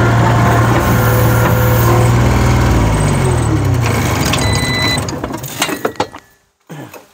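New Holland LS140 skid steer's diesel engine idling steadily, then winding down in pitch and stopping as it is shut off. A short beep sounds as it dies, followed by a few knocks as the operator climbs out of the cab.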